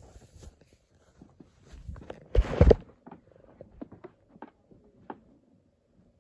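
Cloth rubbing and knocking against a phone's microphone as it is handled or wrapped, with the loudest rustle and bump about two and a half seconds in, then a few scattered small clicks that die away.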